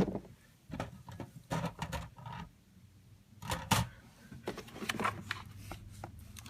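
Scattered knocks and light clatter from keyboards being picked up and handled, one a Razer BlackWidow mechanical keyboard and one a cheap membrane keyboard, at irregular moments with short quiet gaps between.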